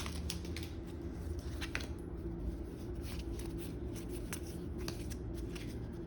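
Pokémon trading cards being handled and slid against one another, a scatter of faint light clicks and rustles, over a low steady hum.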